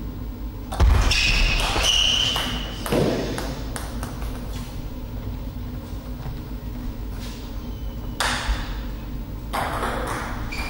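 A short table tennis rally: the ball knocking off rackets and table, with ringing pings as the loose ball bounces away, then a few scattered knocks later on.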